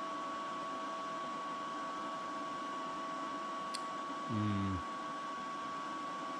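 Steady whir of a powered-on R-Tech 181 digital MIG welder's cooling fan, with a constant high whine over it. There is a single light click a little before four seconds in, and a short vocal "uh" just after.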